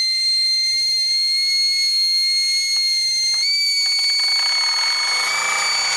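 Brass steam whistle on a Mamod toy steam engine's boiler blowing one long, steady high note that steps slightly higher about three and a half seconds in. A rougher noise joins beneath it near the end.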